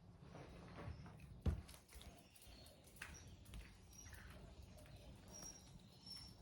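Faint scuffs and knocks from an old dog pawing at the ground, with one sharper knock about a second and a half in. Small birds chirp faintly from about three seconds in.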